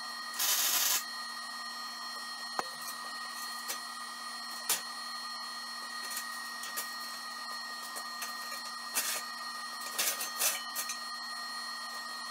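Heavy square steel tubing being shifted and set down on a perforated steel welding table: a short scrape about half a second in, then scattered light knocks and clunks, over a steady electrical hum with a high whine.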